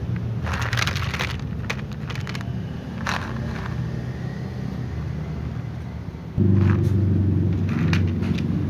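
A steady low mechanical rumble that grows louder about six and a half seconds in, with scattered clicks and rustles over it.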